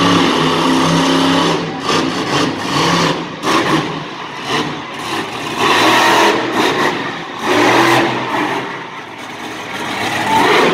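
Monster truck's engine revving hard in repeated bursts, its pitch rising and falling as the throttle opens and closes.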